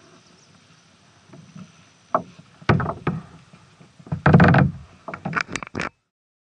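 Faint water at first, then a run of hard knocks and bumps on the plastic kayak hull as it comes in against the floating dock. The loudest is a longer bump about four seconds in, followed by quick knocks, and then the sound cuts off abruptly.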